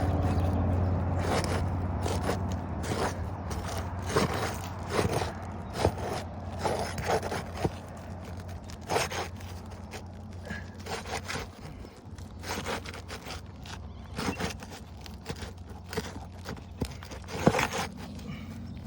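A roof snake scraping and knocking under asphalt architectural shingles in irregular strokes as staple fasteners are worked loose. A low hum fades away over the first few seconds.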